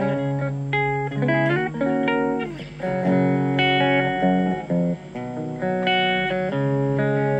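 Electric guitar played through a Blackstar ID:Core Stereo 10 V2 combo amp on its clean voice: ringing chords that change about once a second, with a short slide in pitch about a second and a half in. The amp's ISF tone knob sits at its middle setting, a somewhat brighter but not yet very bright clean tone.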